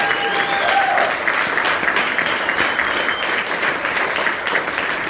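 Audience applauding: a roomful of people clapping steadily. A held high tone sounds over the clapping for about the first second.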